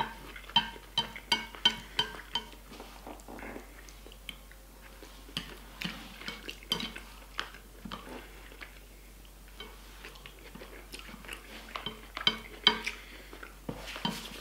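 Wooden chopsticks clicking and scraping against a plate while picking up rice, with chewing between. A quick run of clicks comes near the start and another toward the end.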